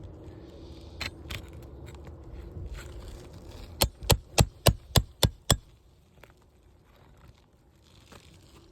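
Scraping and a couple of clicks as a brittle asphalt shingle tab is worked up, then seven sharp hammer strikes in quick succession, about four a second, on the nail puller to get under a roofing nail.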